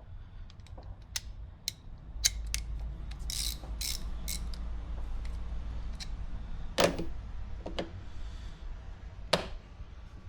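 Metal hand tools being handled: scattered clicks and clinks of sockets and ratchets, with two louder knocks near the end and a low rumble through the middle.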